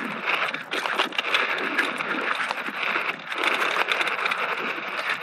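Electric mountain bike rolling fast over a dirt and gravel trail: tyres crunching on the loose surface, with many small clicks and rattles.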